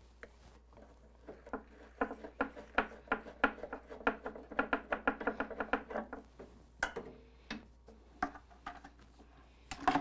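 A quick, uneven run of small metallic clicks and clinks, with a faint ring, as a hose's threaded coupling is unscrewed from a brass service-valve port on a tankless water heater, followed by a few separate knocks near the end.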